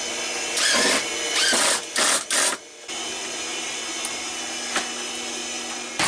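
Cordless drill/driver running in four short bursts in quick succession, driving screws, over a steady background hum.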